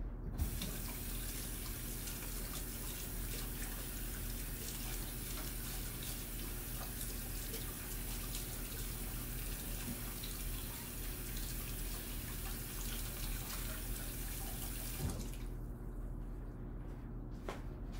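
Kitchen tap running into the sink while hands are washed of sticky bread dough; the water is turned off about three seconds before the end, leaving a low hum and a faint click.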